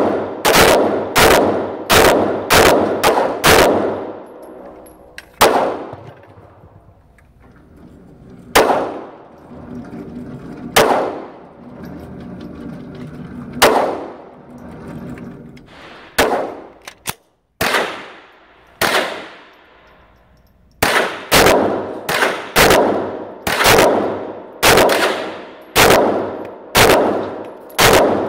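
Smith & Wesson M&P 2.0 pistol firing in an indoor range, each shot ringing off the walls. It opens with a fast string of shots, slows to single shots a few seconds apart in the middle, then ends with another quick string of about a dozen shots at roughly two a second.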